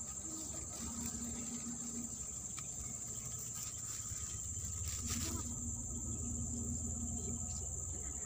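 Steady, high-pitched chorus of insects such as crickets or cicadas, unbroken throughout, with a few faint clicks.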